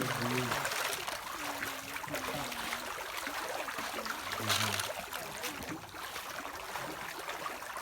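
Water trickling and splashing, with faint voices in the background and one brief louder noise about four and a half seconds in.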